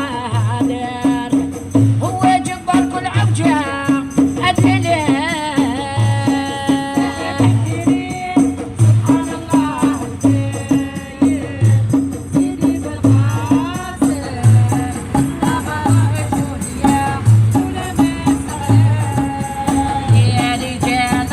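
Folk-style music with a steady low drum beat, quicker rattling percussion and a wavering melody line over it.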